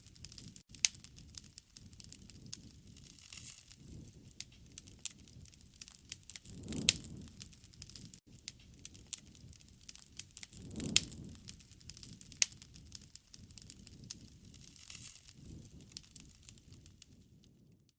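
Wood fire crackling and popping, with a steady low rumble of burning and a few louder pops with soft puffs of flame about seven and eleven seconds in.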